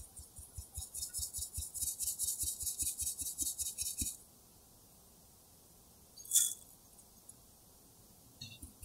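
Hand tapping the rim of a fine-mesh stainless steel sieve to sift almond flour into a glass bowl: a fast, even run of light taps, about six a second, for about four seconds. About six seconds in, a single sharp clink of metal on glass as the sieve meets the bowl, with a few small clicks near the end.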